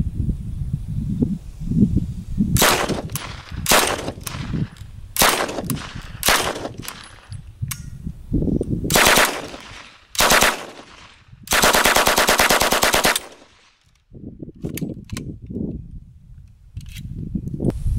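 Sten submachine gun firing 9mm on full auto: a string of short bursts, then one longer burst of nearly two seconds about eleven and a half seconds in.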